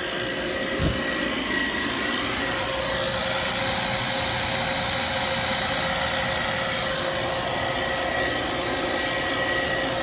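Portable refrigerant recovery machine running steadily, its compressor and fan pulling the refrigerant out of a heat pump system, with a steady hum and whine. A short low thump about a second in.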